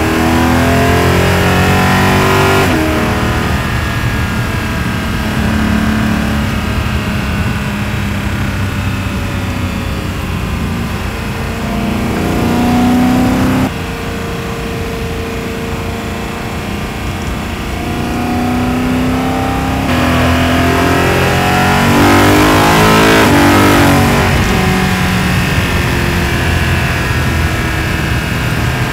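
BMW E92 M3's S65 V8, catless with test pipes, heard through exhaust and intake-plenum microphones under way. The revs climb and fall again and again, with a sudden drop in level about halfway through and a quick run of revs up and down a few seconds before the end.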